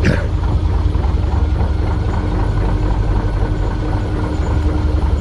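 Steady low machinery drone with a constant hum while diesel is pumped from a fuel boat into a narrowboat, with a brief sharp click right at the start.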